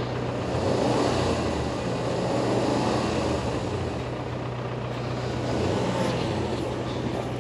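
Truck engine running with a steady low drone, the noise swelling about a second in and again about six seconds in.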